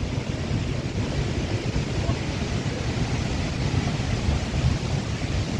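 Wind buffeting the microphone in a fluttering low rumble over a steady rushing noise.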